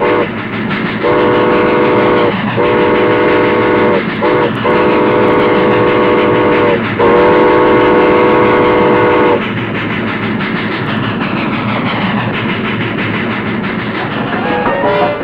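Steam train whistle sounding five blasts, the third one short, over the steady rumble and clatter of the moving train. The whistle stops about nine seconds in and the train noise carries on.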